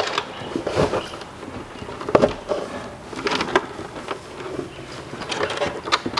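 Thick electrical cable being bent and worked into the back of a wall-mounted EV charger box: rubbing and scraping with a handful of scattered knocks and clunks.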